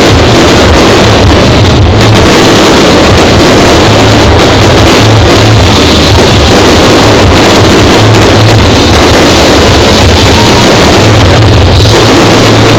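Loud music, heavily distorted and saturating the microphone, with a pulsing low bass throughout.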